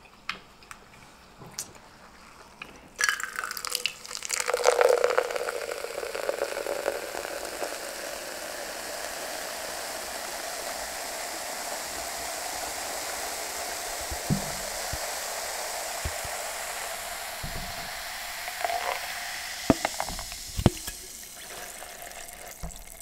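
Liquid poured in a long stream from a bottle held high into a clear plastic cup, starting about three seconds in with a heavier splash; the pitch of the filling cup rises slowly as it fills. The pour thins out near the end, followed by a few light clicks.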